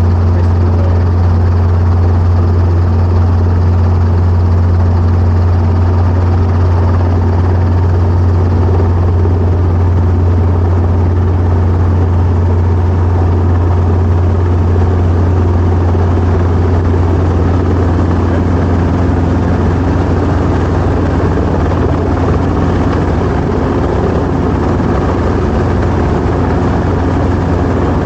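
Helicopter's engine and rotor running steadily, a constant loud low drone.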